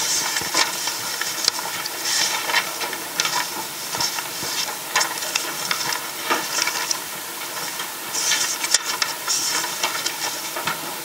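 Paper rustling and small handling clicks at a table picked up by the desk microphones, scattered irregularly over a steady hiss.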